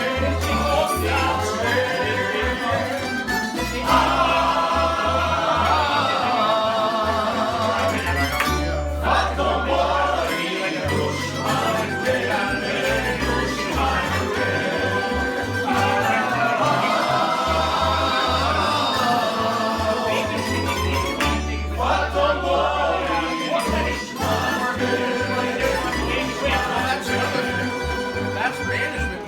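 Croatian tamburitza ensemble playing live: plucked tamburica strings carry the melody over a steady bass line, with voices singing.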